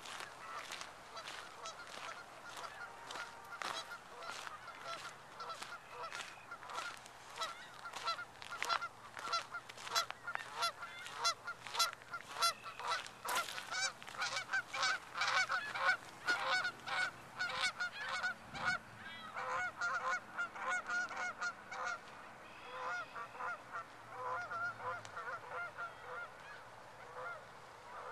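A flock of geese honking: many short calls overlapping one another, most crowded through the middle and thinning out near the end.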